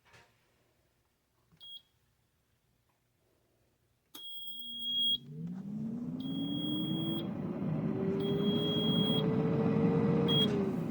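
Air fryer beeping and its fan starting. After a short beep, three long, high beeps come about a second apart while the fan motor spins up with a rising whine and a rush of air. A final short beep comes near the end, as the fan's pitch begins to fall.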